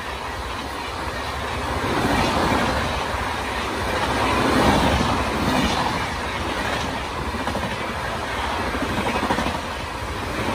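The LHB passenger coaches of the Bihar Sampark Kranti Express pass close by at speed: a continuous rush of wheels on rail that swells and eases in loudness.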